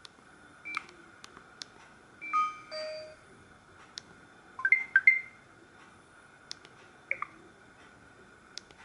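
Short electronic alert tones from a Samsung SGH-E900 phone's speaker: several brief beeps and chirps of a few notes each, spaced a second or two apart. The loudest is a quick run of rising and falling notes about five seconds in, and faint clicks are scattered between the tones.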